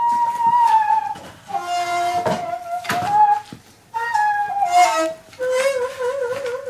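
Daegeum, the Korean large bamboo transverse flute, playing a slow melody: held notes that bend and slide down in pitch, a brief pause, then a long low note with wide vibrato near the end.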